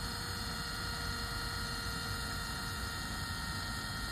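Steady mechanical hum holding several fixed tones, with no change in level.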